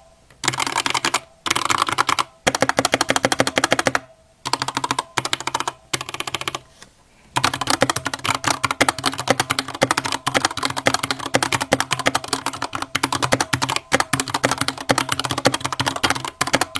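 Mechanical keyboard fitted with pre-lubed Gateron Black Ink V2 linear switches being typed on. Short runs of keystrokes with brief pauses between them give way, about seven seconds in, to steady fast typing.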